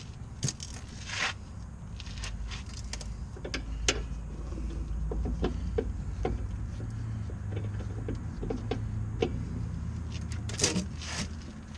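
Socket wrench with a 17mm socket working on the rear brake caliper bracket bolts: scattered metallic clicks and clinks over a steady low rumble.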